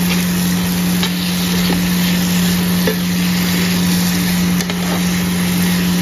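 Matar paneer sizzling in a nonstick frying pan while a spatula stirs it, with a few soft scrapes and taps of the spatula, over a steady low hum.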